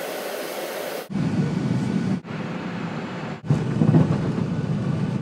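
Short clips of airliner interior noise cut together: first a steady cabin hiss, then from about a second in the loud, low rumble of the plane rolling along the runway, heard inside the cabin. The rumble is loudest near the end.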